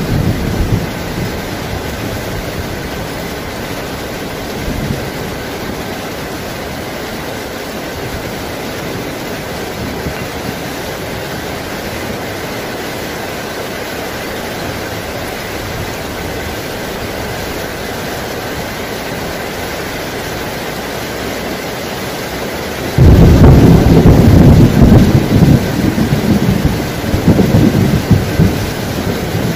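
Heavy rain falling steadily. About 23 seconds in, a loud rumble of thunder breaks in suddenly and rolls on, swelling and fading, through the rest of the stretch.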